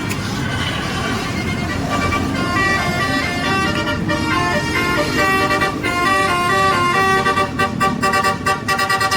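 Bus's basuri (telolet) multi-tone musical horn playing a quick tune of stepped notes over engine and traffic rumble; the notes come in fast staccato pulses near the end.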